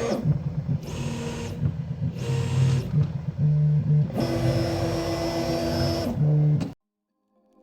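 Prusa i3 MK3S+ 3D printer's stepper motors whining through a series of short moves, its pitch changing from move to move, during the automatic mesh bed-levelling check before the print starts. The sound stops abruptly near the end.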